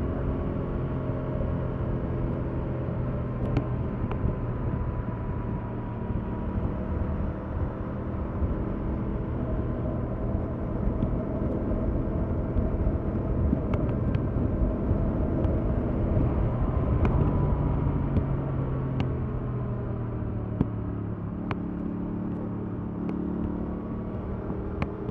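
Stock 2021 Yamaha MT-07's 689 cc parallel-twin engine running steadily on the move, its pitch drifting gently with small throttle changes, easing off and picking up again near the end. A few faint clicks are heard here and there.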